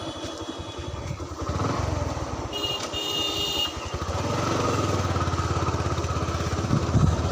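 Motorcycle engine running steadily as it is ridden along, getting louder about a second and a half in and again around four seconds. A brief high-pitched beep sounds around two and a half seconds in, lasting about a second.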